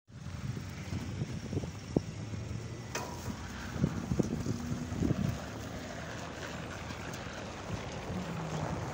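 Interior noise of a ZiU-682G trolleybus: a steady low rumble with knocks and rattles from the body, including a sharp knock about two seconds in and another about a second later.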